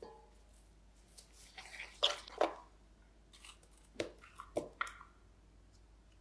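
Irregular wet squishing and light crunching of chong-gak radish kimchi being handled, in scattered clusters about two seconds in and again around four to five seconds.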